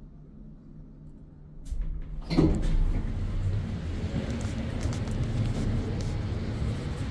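Elevator doors sliding open with a click about two seconds in, letting in the steady low rumble and hum of the station hall, which stays loud to the end, with footsteps as someone walks out of the car.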